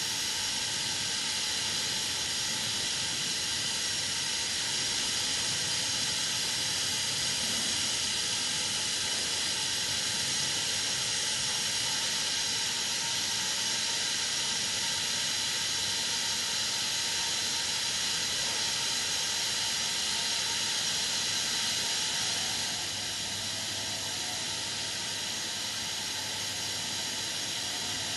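Steam hissing steadily from a standing steam locomotive, easing a little about 22 seconds in.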